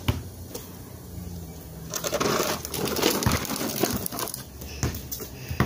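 A basketball bouncing a few times on a concrete slab, each bounce a short sharp knock. In the middle, a couple of seconds of crackling, rustling noise close on the phone's microphone.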